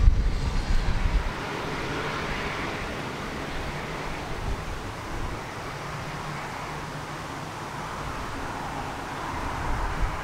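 Pilatus PC-9's PT6A turboprop running at taxi power as the aircraft taxis away, a steady engine whine and propeller hum. Wind rumbles on the microphone for about the first second.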